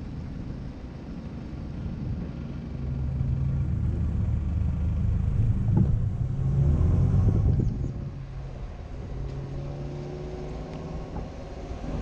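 Car engine and road noise heard from the moving car. The engine note grows louder from about three seconds in as the car accelerates, then eases off again around eight seconds.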